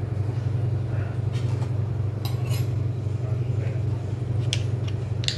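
A metal spoon clinking against a steel bowl a few times: once about two seconds in and several times near the end. A steady low hum runs underneath throughout.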